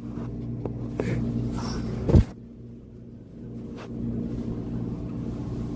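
Steady low hum of laundromat machines, with one short, loud, low fake fart noise about two seconds in. The background level dips briefly right after it.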